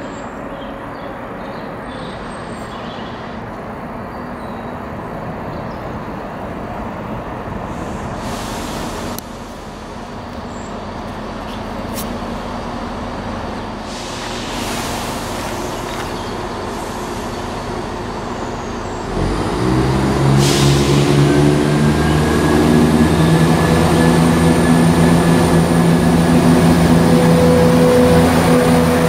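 Diesel multiple unit trains: a Class 170 Turbostar drifting into the platform with its diesel engines running steadily, then a diesel unit accelerating away, much louder from about two-thirds of the way through, with a slowly rising whine over the engine note.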